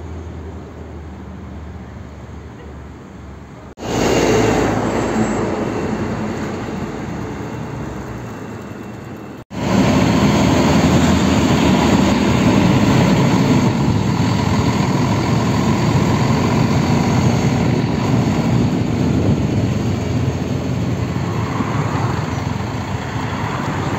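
Bus and road traffic noise across three spliced clips: a quieter stretch of city bus engine sound, then an abrupt cut about four seconds in to a louder clip that fades, then another abrupt cut to a steady, loud rumble of a city bus engine and road noise heard from close behind the bus while it drives.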